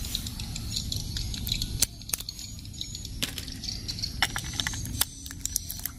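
AA batteries clinking against each other and clicking into the plastic battery compartment of a toy train engine, as they are fitted by hand. Sharp clicks come at irregular moments, over a low steady background noise.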